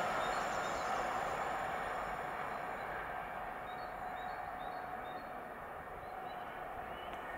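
Koleje Małopolskie EN79 electric multiple unit running away down the line, its rolling noise fading steadily. A steady mid-pitched hum holds throughout, and from about three seconds in a small bird chirps repeatedly.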